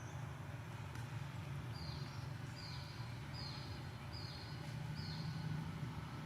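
A bird calling five times in a row, about one call a second, each a high held note that drops away at the end, over a steady low rumble.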